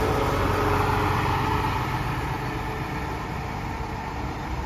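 Heritage bus engine running, its sound gradually fading.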